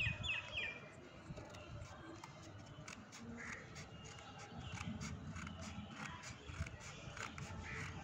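Small scissors snipping through folded paper, a scatter of light irregular clicks, over a low outdoor rumble. A bird calls in a quick run of short notes right at the start.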